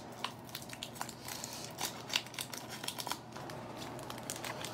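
Wrapper of a baseball card pack being opened, crinkling and tearing in many short crackles.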